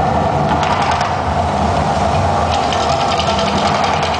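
The Mirage volcano eruption show: a loud, steady low rumble from the show's sound system. Fast ticking, like rattling percussion, joins in, strongest over the last second and a half.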